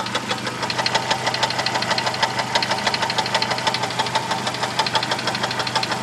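1998 Jeep Wrangler TJ's 2.5-litre four-cylinder engine idling with a rapid, even knock, heard from under the oil pan. The owner is unsure whether it is lifter noise, piston skirt slap or engine knock, and heavy-duty oil stabilizer has not cured it.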